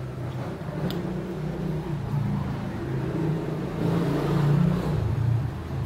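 A motor vehicle's engine running nearby, a low rumble that swells to its loudest about four to five seconds in and then eases off.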